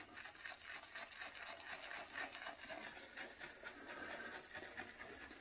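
Faint swishing and crackling of a synthetic shaving brush being worked in a tub of shaving soap to load it for lather.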